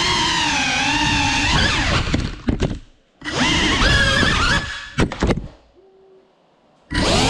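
GEPRC Cinelog 35 cinewhoop's motors and propellers whining, the pitch rising and falling with throttle, as heard from the onboard GoPro. The whine cuts out twice with sharp knocks; around the second cut the drone crashes and comes to rest on the floor, and after a quiet stretch the motors spin up again near the end.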